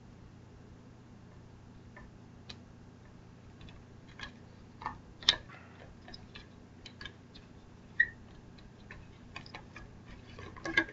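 Scattered small plastic clicks and rattles as a battery pack is plugged in and fitted into an RC buggy's battery compartment, with a few sharper clicks about five and eight seconds in and a cluster near the end.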